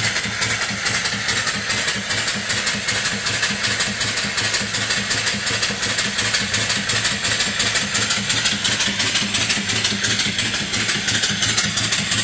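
Hand-built vertical steam engine (3-inch bore, 4-inch stroke) running steadily under steam and driving a 12-volt alternator by V-belt: a rapid, even chuff of exhaust steam puffing out over a continuous hiss.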